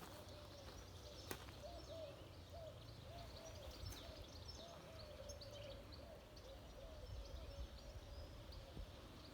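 Birds calling in a pine forest: a soft, low, hooting note repeated about twice a second, with faint high chirps above it, against a steady outdoor hiss. There are two sharp clicks in the first few seconds.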